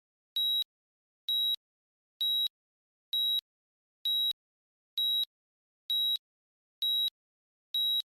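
Electronic timer beeping: short, high, single-tone beeps at an even pace of about one a second, all alike, the countdown an interval timer sounds before it starts.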